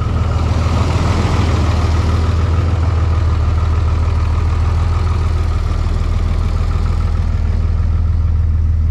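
Step van's engine idling steadily, a constant low hum.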